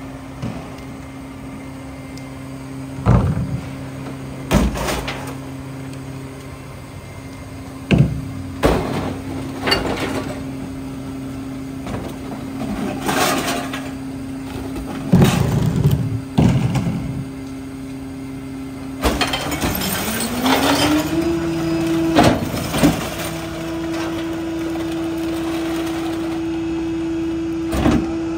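Mack Granite garbage truck's diesel engine running steadily, with irregular loud bangs and clatters as trash is loaded into its Pak Mor split rear-loader hopper. About two-thirds of the way through, the engine speeds up and holds a higher steady pitch.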